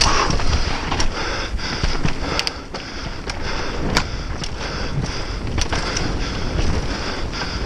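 Mountain bike descending a dirt trail at speed: wind buffeting the camera microphone over the rumble of tyres on dirt, with scattered sharp clicks and knocks from the bike rattling over bumps.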